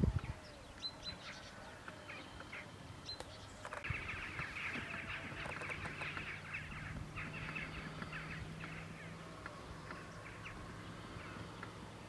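Wild birds calling outdoors: scattered short chirps and whistles, then a dense, rapid chattering from about four seconds in that fades after about nine seconds. A low steady hum runs underneath from about four seconds on, and a brief low thump comes at the very start.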